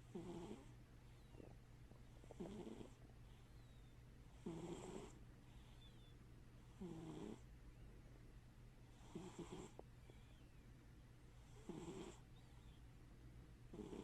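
Domestic cat snoring faintly in its sleep: a short snore with each breath, about every two and a half seconds, six in a row.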